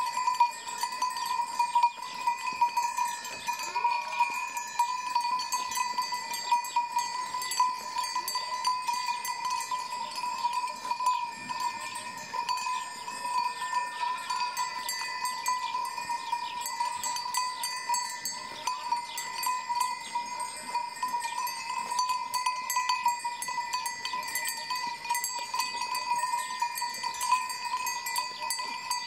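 Sheep bells clanking continuously and irregularly as a flock grazes, with many overlapping quick strikes over a steady ringing tone.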